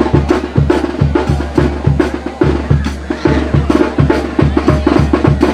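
Lively band music with a quick, steady beat of bass and drums, about three beats a second, played for the bull ride.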